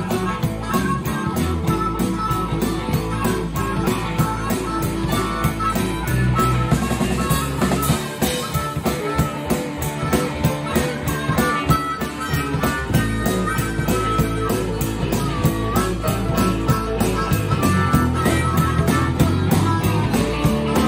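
Rock band playing live, with electric guitar, bass guitar and drum kit keeping a steady beat.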